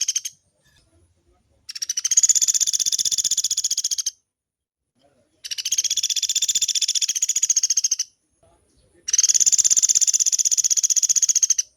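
Pelatuk beras woodpecker calling in long rapid trills of sharp, high notes. Each trill lasts about two and a half seconds with a short pause between; the tail of one trill ends the first moment, then three full trills follow.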